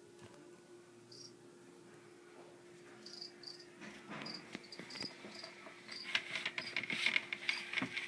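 Handling noise as a vinyl figure and its cardboard box are touched and moved, with clicks and rustles growing loudest near the end. A steady low hum sits under it, and short high chirps repeat two to three times a second from about three seconds in.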